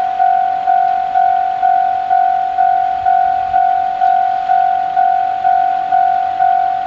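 Japanese railway level-crossing warning bell ringing, an electronic clang repeating evenly about twice a second, each strike sharp and then dying away, warning that a train is approaching.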